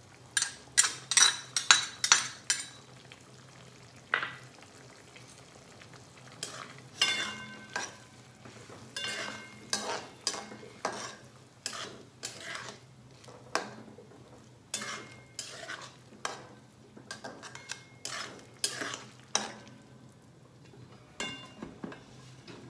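A flat steel spatula stirring and scraping a thin pea-and-mushroom gravy in a metal kadai. It makes an irregular run of short strokes, some with a brief metallic ring where the spatula strikes the pan.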